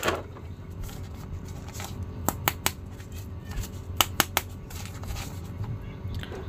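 Clear plastic blister tray and a plastic action figure being handled: the figure is lifted out of the tray, with light crackling and two quick groups of three sharp plastic clicks.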